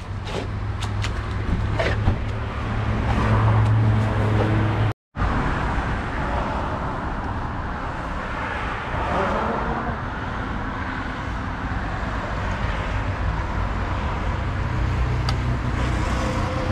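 Steady street noise with passing traffic. In the first seconds a metal spatula scrapes and clinks against the cast-iron kazan, and the sound cuts out briefly about five seconds in.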